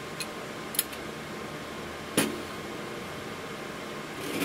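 Sharp metal clicks and a knock as a CPU and copper heatsink module is handled and fitted at its socket in a server processor board. The loudest knock comes about two seconds in, over steady room noise.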